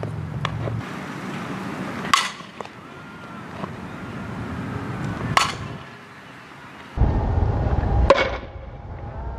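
Softball bat hitting a softball: three sharp cracks about three seconds apart, each with a brief ring.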